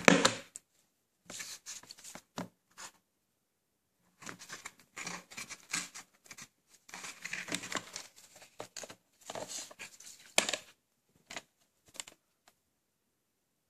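Plastic VHS clamshell case and cassette being handled: a sharp click as the case is pressed open at the start, then irregular scraping and rustling of plastic as the cassette is taken out, with a few short clicks near the end.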